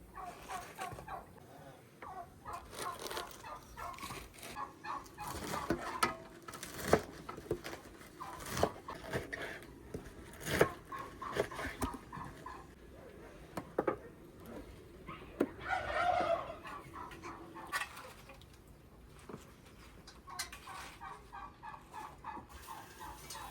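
Domestic poultry calling in quick, repeated clucking runs, with one louder call about two-thirds of the way in and several sharp knocks in between.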